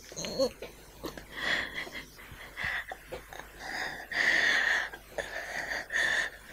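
A man breathing heavily and unevenly close to the microphone: a string of long, noisy breaths, the longest and loudest about two-thirds of the way through.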